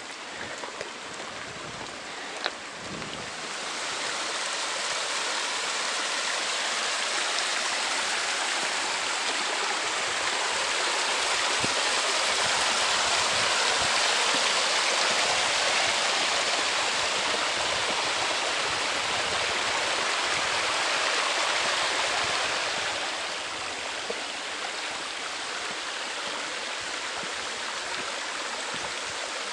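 Mountain stream with a small cascade rushing. The rush swells a few seconds in, is loudest through the middle, then drops back to a lower steady rush near the end. One sharp click comes about two and a half seconds in.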